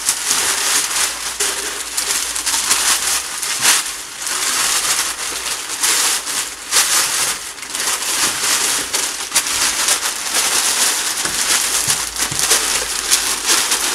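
Large sheets of packing paper rustling and crinkling loudly as they are pulled from shipping boxes and bunched up, with many sharp crackles.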